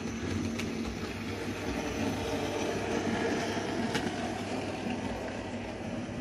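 Model train running on the layout's track: a steady rumble of wheels on rail and a motor hum, with a couple of light clicks.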